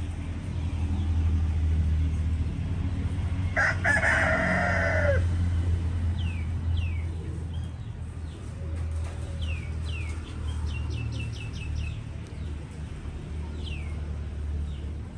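A rooster crows once, about four seconds in, for about a second and a half, the call falling away at its end. Short chirps from small birds follow, over a steady low hum.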